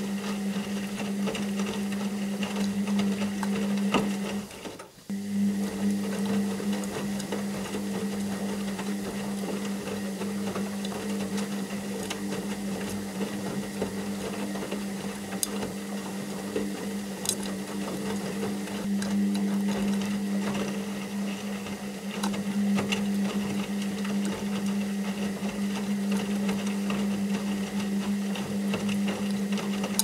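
Washing machine running: a steady motor hum with faint ticking. The hum cuts out for a moment about five seconds in and then starts again.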